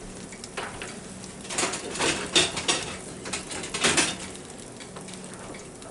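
Metal kitchen tongs clattering and knocking a few times, over a low steady hum.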